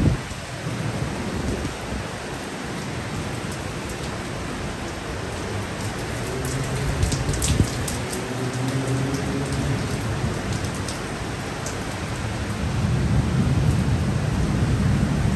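Heavy rain pouring steadily, with a few sharp drip ticks about halfway through. A low rumble of thunder swells midway and again near the end.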